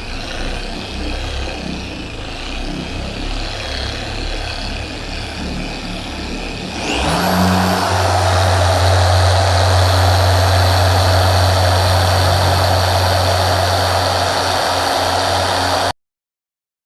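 Electric car polisher running on a pad, cutting 3D One compound into 2500-grit wet-sanded paint. About seven seconds in it speeds up with a rising whine, then runs steady and louder before cutting off abruptly near the end.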